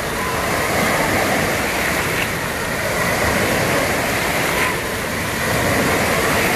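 Steady rush of water from wave-pool surf washing across the shallows, with faint distant shouts of people in the pool.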